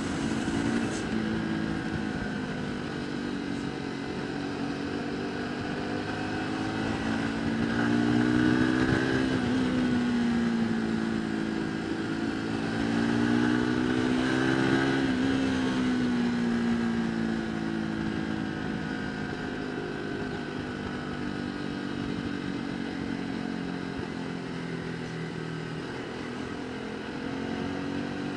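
Motorcycle engine under way, its pitch climbing to a peak about nine seconds in and again around fifteen seconds in, easing off after each, over a steady rush of wind and road noise.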